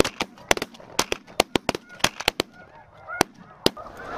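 A volley of shotgun fire from several hunters: more than a dozen shots in quick, uneven succession over the first three and a half seconds, then they stop. Snow goose honking carries on between the shots.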